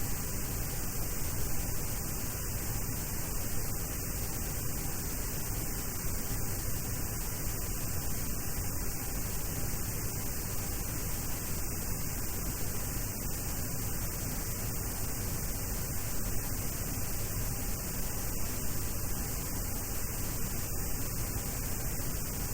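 Steady static hiss with a low hum on the aircraft's headset/interphone audio line, unchanging throughout.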